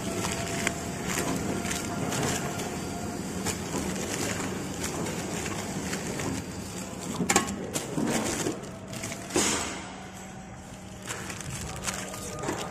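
Horizontal flow wrapper (pillow-pack machine) running, a steady mechanical hum under irregular clicks and the crinkle of film-wrapped packs being handled. A few louder sharp knocks come about seven and nine seconds in.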